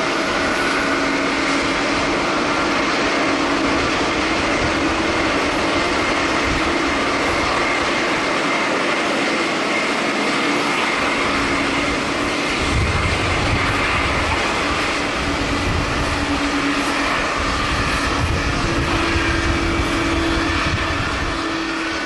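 Steady jet engine noise from a Boeing 767 airliner rolling out along the runway just after landing, with its spoilers up. From about halfway through, gusts of strong wind buffet the microphone with a low rumble.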